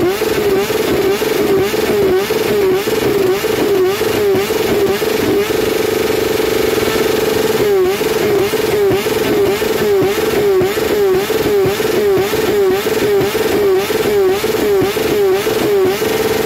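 Motorcycle engine revved through an aftermarket exhaust silencer, the throttle blipped about twice a second, with a steady hold a third of the way in and again near the end. The exhaust pops and crackles as it spits flame.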